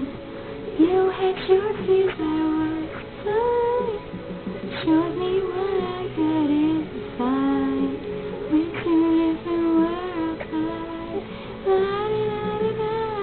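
A girl's voice singing a pop melody in phrases, holding some notes and sliding between pitches.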